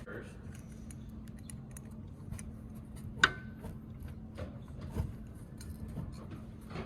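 Sparse light clicks and taps of hand work on an exit sign's wiring and mounting bar, with one sharper metallic click about three seconds in, over a steady low hum.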